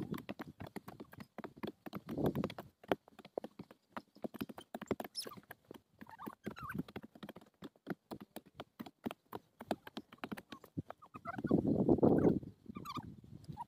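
Short-handled hand hoes chopping and scraping into dry soil and stubble, giving irregular knocks and scuffs with dry stalks crackling. Louder scuffing bursts come about two seconds in and again near the end.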